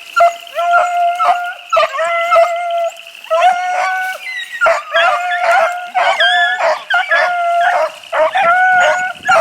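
Pack of hunting beagles baying, several dogs giving long, overlapping howling bawls one after another, in full cry as they run a rabbit.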